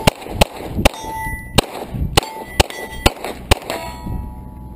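Pistol fired fast at steel targets: about eight shots in three and a half seconds, with hits answered by the ringing clang of the steel plates.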